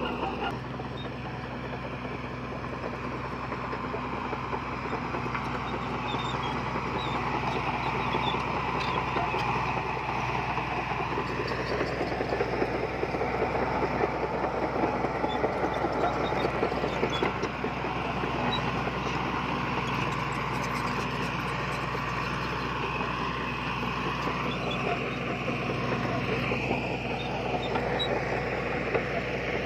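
Heavy diesel engine of earthmoving machinery running steadily, a low engine hum with a busy mechanical noise over it that grows somewhat louder in the middle.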